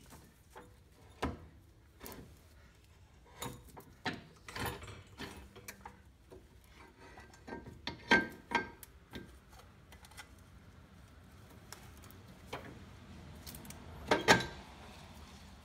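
Scattered metal clinks, taps and rattles of hands and tools working on car suspension parts, with the loudest knocks about eight and fourteen seconds in.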